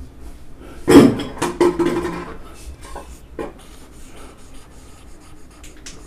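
Whiteboard marker writing a word on a whiteboard: a run of short, faint scratchy strokes. A brief louder sound with a low hum comes about a second in.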